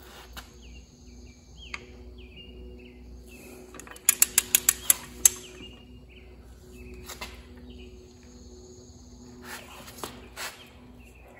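Click-type torque wrench ratcheting and clicking on bolts being tightened to 75 foot-pounds: a quick run of about six sharp clicks about four seconds in, then a few scattered clicks near the end.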